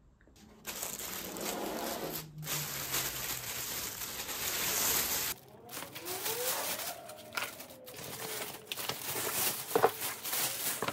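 Crinkly rustling of a plastic delivery bag while plastic takeout containers are lifted out and set down on a table. The rustling breaks off briefly about halfway through, and a sharper knock comes near the end.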